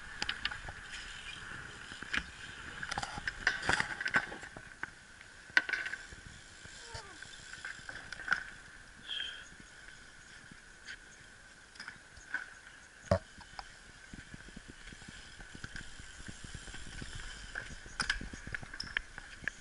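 BMX bike riding over concrete skatepark ramps: rolling noise with scattered clicks and rattles, and one heavy thump about 13 seconds in.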